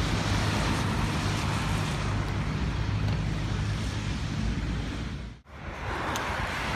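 Steady outdoor noise of wind rumbling on the microphone mixed with road traffic. About five and a half seconds in it cuts out briefly and comes back changed, at an edit in the recording.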